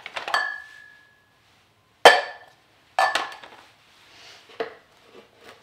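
Lab beakers, cups and rubber bungs being handled and set down on a table. A handful of sharp clinks and knocks, the first ringing briefly, the loudest about two seconds in.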